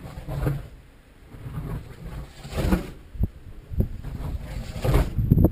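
Kinetic K2M dynamic-soaring glider rushing past on its loops: three swelling passes of airflow noise about every two and a half seconds. Low wind rumble and a few short thumps of wind on the microphone run underneath.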